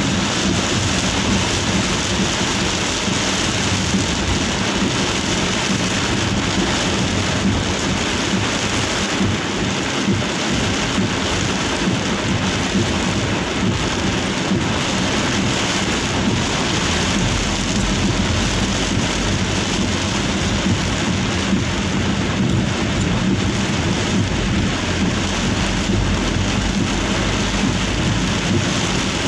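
Heavy downpour drumming on the roof and windshield of a Daihatsu Gran Max van, heard from inside the cab as a steady, dense roar of rain. A deeper rumble joins a little past halfway through.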